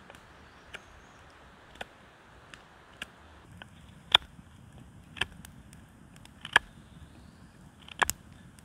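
A series of about eight sharp knocks, roughly one a second, getting louder from about four seconds in and ending in a quick double knock.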